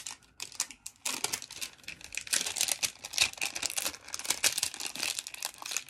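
Clear plastic shrink-wrap crinkling and crackling as it is pulled off a spray bottle, in dense rapid crackles that pick up about a second in.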